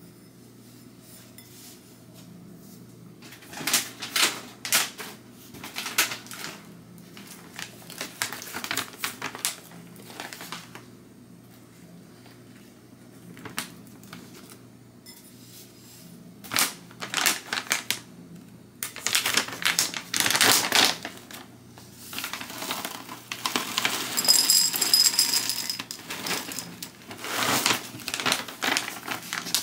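Plastic cereal bag crinkling as it is handled and opened, then small ring-shaped cereal pieces rattling and clicking into a ceramic bowl in a dense run near the end.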